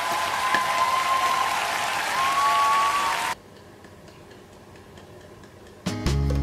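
A concert audience applauding at the end of a live song, cutting off suddenly about three seconds in. After a short quiet gap, music with a heavy bass beat starts near the end.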